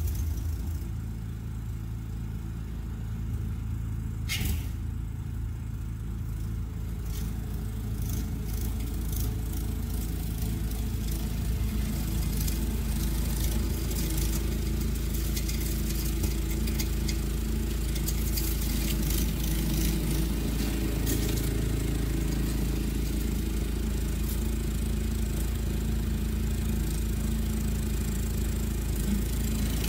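Toro SnowMaster 824 QXE snowblower's four-stroke engine running steadily while it clears and throws snow, gradually getting a little louder.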